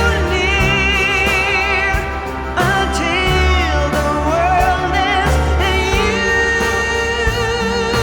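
Background song: a sung vocal holding long, wavering notes over a steady bass and instrumental backing.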